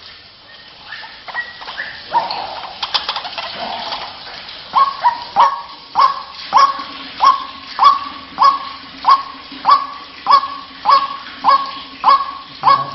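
White-breasted waterhen calls, from a lure recording. Irregular notes at first, then from about five seconds in a steady series of sharp, repeated 'kwak' notes about every 0.6 s.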